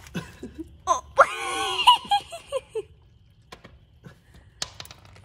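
A man laughing for about two seconds, followed by a few light clicks.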